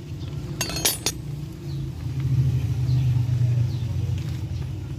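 Metal scooter transmission parts clinking together a few times just under a second in, over a steady low rumble that swells in the middle.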